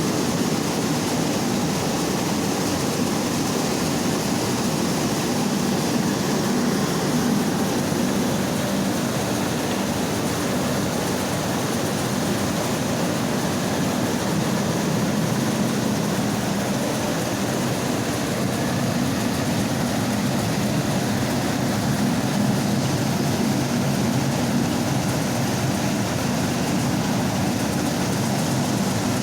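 Mini rice milling machine running steadily under its motor, a constant loud hum with a rushing hiss of grain and air, unchanging throughout.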